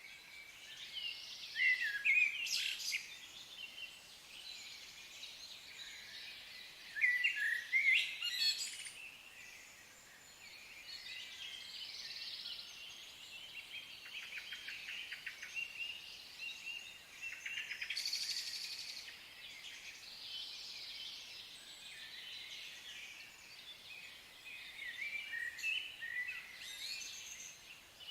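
Songbirds singing, several overlapping songs of chirps and trills, with the loudest phrases about two seconds in and again about eight seconds in.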